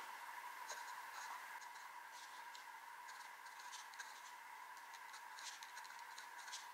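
Platinum 3776 Century fountain pen's fine 14k gold nib writing on paper: a faint run of small, quick, irregular scratches as the letters are formed, over a faint steady hum.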